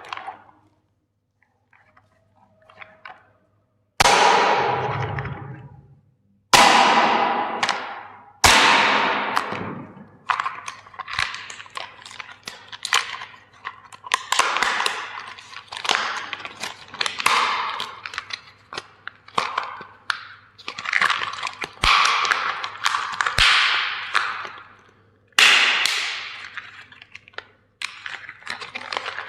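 A hammer smashing plastic toy vehicles: repeated sharp blows, each followed by cracking and crunching as the plastic breaks apart, the first hard strike about four seconds in.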